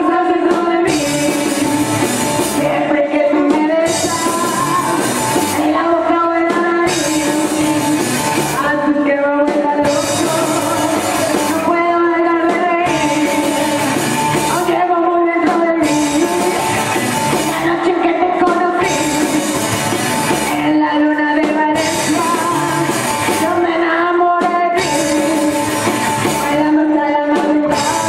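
Rockabilly song with a singer over a full band, steady and loud throughout.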